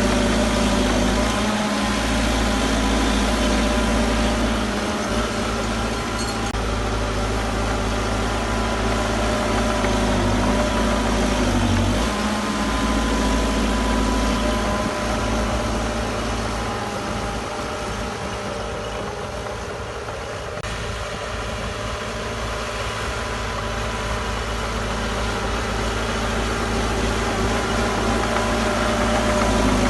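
Heavy diesel engine of earthmoving machinery running steadily, easing off a little past the middle and building again near the end.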